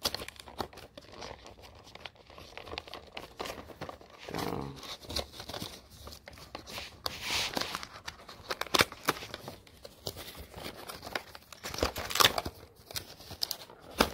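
Hands opening a gaming mouse's cardboard retail box: irregular crinkling, tearing and rustling of packaging, with sharp clicks and scrapes, the loudest about two-thirds of the way through and again near the end.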